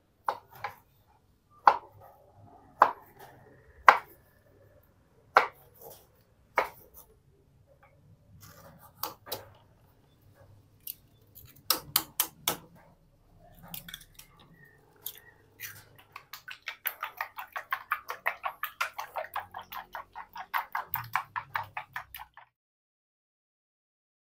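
Kitchen work sounds: a knife knocking several times on a wooden chopping board while roasted eggplant is cut, then eggs cracked against a coconut-shell bowl, then a fast even run of light ticks, about five or six a second, as the eggs are beaten in the bowl.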